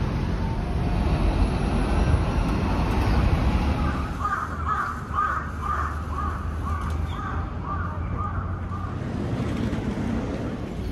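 Steady street traffic noise, with a run of about ten short repeated calls, about two a second, starting about four seconds in and fading out by about eight and a half seconds.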